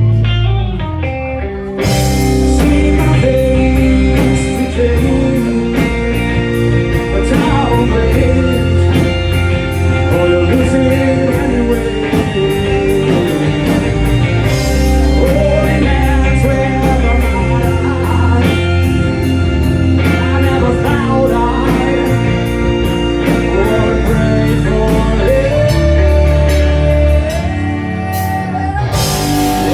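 Live rock band playing a song, with a sung lead vocal over guitar and drums and a steady beat. After a brief drop, the full band comes back in about two seconds in.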